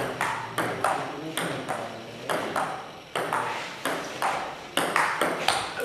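Table tennis rally: the ball clicks back and forth off the paddles and bounces on the table, with a hit or bounce about every half second and a short ring after each click.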